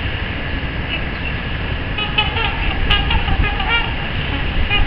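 Swans giving a series of short, horn-like calls about two to four seconds in, over a steady low rumble.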